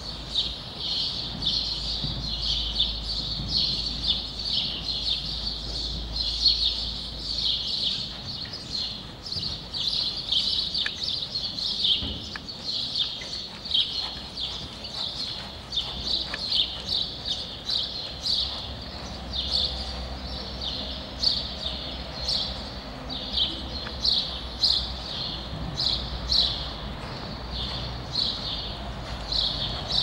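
Small birds chirping continuously, over the rhythmic footfalls of a ridden horse moving on arena sand.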